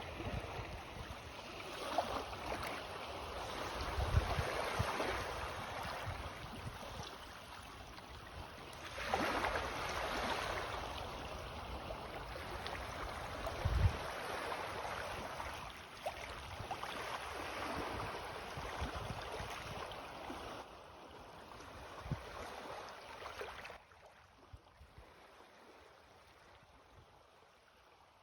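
Small sea waves of an incoming tide washing onto the shore, each wash swelling and ebbing every few seconds, with a couple of low thuds. The sound drops suddenly in level near the end and fades.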